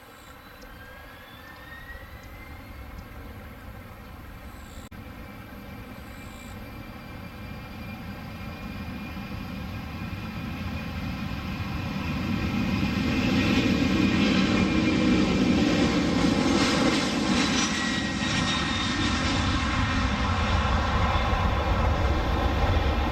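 ANA Boeing 767-300ER's twin General Electric CF6 turbofans at takeoff thrust. The jet noise builds steadily as the airliner rolls down the runway, is loudest as it passes about halfway through, and stays loud as it lifts off and climbs away.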